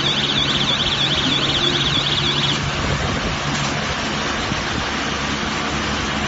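Silage baler machinery and its engine running steadily, a constant mechanical noise with a low hum. For the first two and a half seconds a high warbling tone repeats about four times a second over it.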